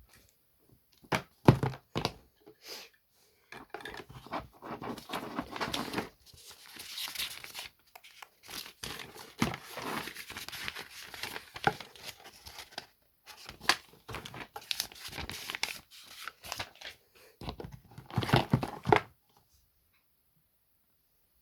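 Packaging of a dash camera being handled and torn open: wrapping crinkling and tearing in irregular bursts, with a few sharp knocks at first and clicks throughout, stopping near the end.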